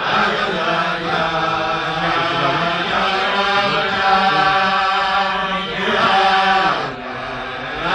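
Men singing a Chassidic niggun together, a slow melody with long held notes; the singing drops quieter for a moment near the end.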